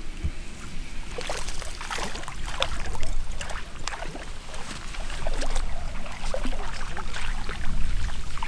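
Wind buffeting the microphone with a steady low rumble, with irregular light clicks and rustles starting about a second in.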